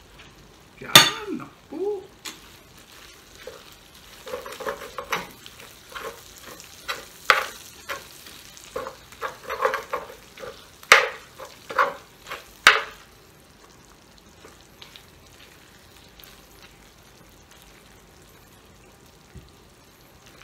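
Metal spoon clanking and scraping against a hot pan of sizzling pork sisig as it is scooped out: a loud clank about a second in, then a run of quick scrapes and clinks that stops about two-thirds of the way through, leaving a faint sizzle.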